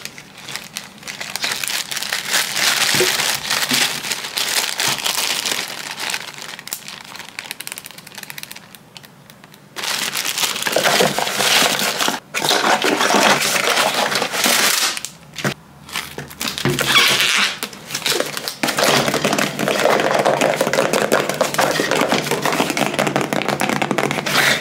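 Zip-top plastic bag crinkling and a small cardboard shipping box being handled and closed, a dense run of rustles and small taps. It eases off for a couple of seconds a little before halfway, then picks up again.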